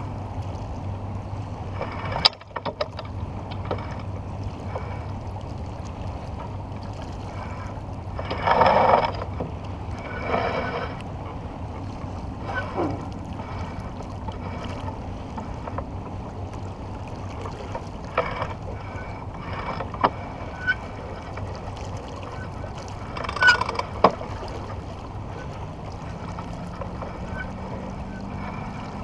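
Sailboat under spinnaker moving through water: a steady rush of water and wind, with scattered clicks and knocks and a few brief louder bursts.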